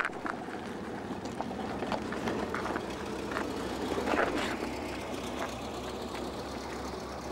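VW Typ 166 Schwimmwagen's air-cooled flat-four engine running as the car drives over rough, sloping dirt. Scattered knocks and crunches come from the wheels and body, the loudest about four seconds in.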